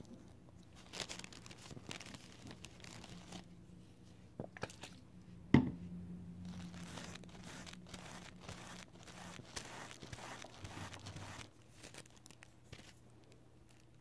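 Cotton pad rubbing and wiping over a metal nail-stamping plate in short scratchy strokes, with one sharp knock about five and a half seconds in, the loudest sound.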